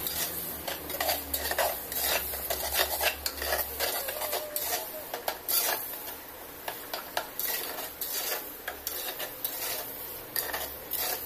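Steel spoon stirring thick mutton curry in a clay handi, scraping and clicking irregularly against the pot's inside, over a faint sizzle from the simmering curry.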